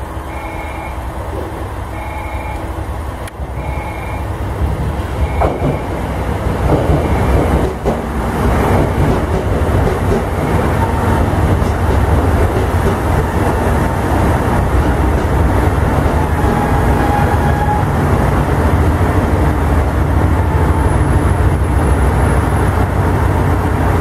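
KiHa 189 series diesel express train pulling into the platform, its engine and wheel rumble growing louder from about five seconds in and carrying on steadily as it rolls to a stop. A short repeating station chime sounds in the first few seconds.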